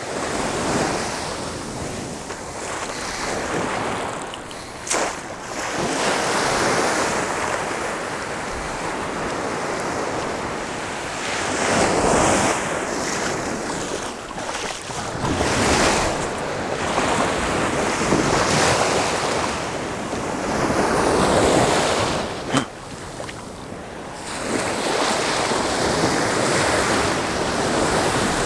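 Small ocean waves breaking and washing up the sand close by, the surf swelling and ebbing every few seconds, with wind buffeting the microphone. Two brief sharp clicks come through, one about five seconds in and one near the three-quarter mark.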